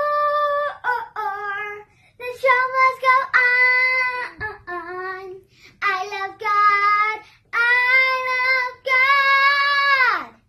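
A child singing a song unaccompanied, in high phrases with long held notes and short pauses between them, the last long note sliding down in pitch near the end.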